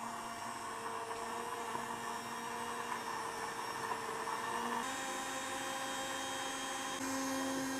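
Electric mixer grinder running steadily, grinding coriander, mint, ginger, garlic and green chillies with a little water into a wet paste. Its hum steps up slightly in pitch about five seconds in and again near the end.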